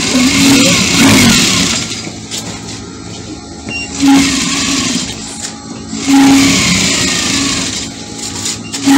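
Electric sewing machine running in three short bursts of a couple of seconds each, stitching the hem of a dress, the motor note falling away as each burst ends.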